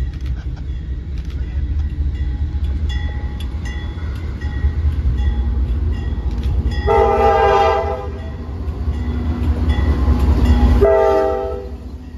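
GE C40-8 diesel locomotive running light, its engine rumbling steadily as the wheels click over track joints and switches. It sounds two blasts on its Nathan K5LA horn, which has a fouled chime: a longer one about seven seconds in and a shorter one about eleven seconds in.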